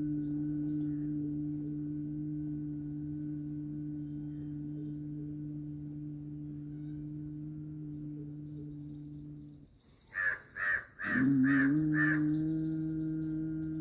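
A steady, meditation-style drone hums under faint bird chirps. About ten seconds in, the drone drops out briefly and a crow caws about five times in quick succession, then the drone resumes.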